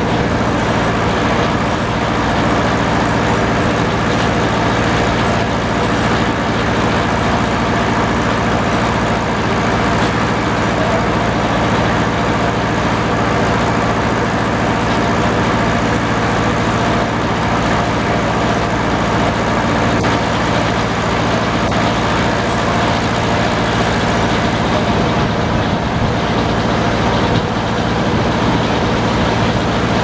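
Antique circular sawmill running steadily, its large saw blade spinning and its belt drive and power unit running at an even, unchanging pitch.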